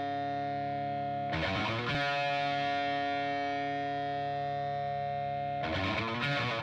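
Intro music: a distorted electric guitar letting chords ring out, with a new chord struck about a second and a half in and again near the end.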